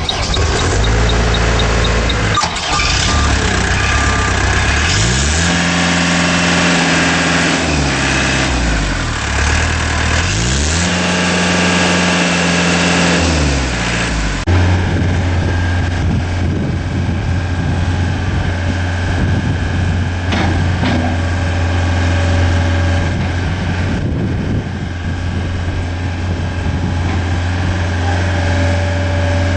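2004 Gehl 4840 skid steer loader's engine starting up, then revved up and back down twice. About halfway through it settles to a steady idle.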